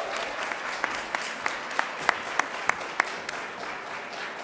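Audience applauding, with a few nearby single claps standing out about three times a second. The applause slowly fades.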